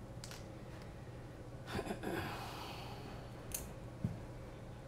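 Quiet bench handling of a small ducted FPV drone: a few light clicks, a man's breathy sigh about two seconds in, and a soft knock near the end.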